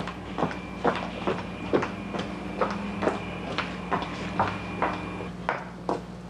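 A steady run of sharp clacks, about two a second, over a low steady hum.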